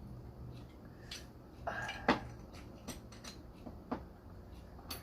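A few light clinks and taps of a glass and liquor bottle being handled on a table. There is a brief scraping sound just before the loudest clink about two seconds in.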